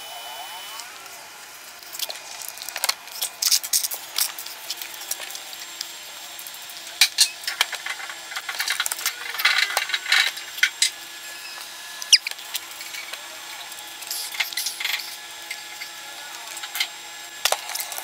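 Irregular sharp plastic clicks and snaps as mechanical keyboard switches and keycaps are pressed into place, coming in clusters, with a faint steady hum underneath.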